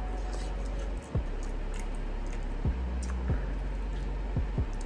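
Background hip-hop beat: a steady deep bass with booming kick-drum hits that drop sharply in pitch, several times, with faint clicks over it.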